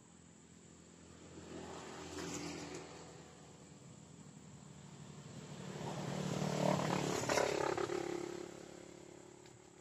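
Engine of a passing vehicle, rising and fading twice: a faint swell about two seconds in, then a louder, longer one that builds, peaks past the middle and dies away.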